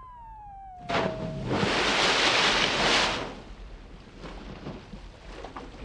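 A long whistle falling steadily in pitch ends about a second and a half in, as a bottlenose dolphin splashes into the water. The splash rushes loudest for about a second, then settles into fainter spray and water noise.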